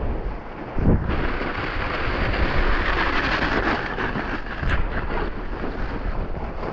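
Skis hissing and scraping over snow on a fast downhill run, with wind rumbling on the microphone.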